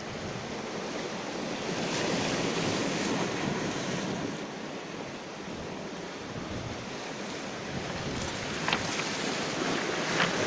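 Small waves breaking and washing over a cobble beach, a steady surf rush that swells a couple of seconds in, with wind buffeting the microphone. A few sharp clicks near the end.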